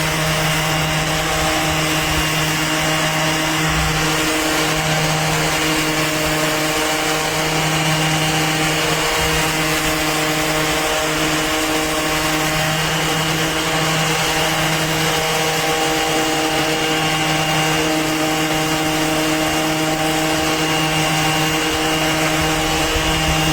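Makita XOB01Z 18V cordless random orbit sander running steadily at one constant speed while sanding wood: an even motor hum over a continuous rough hiss.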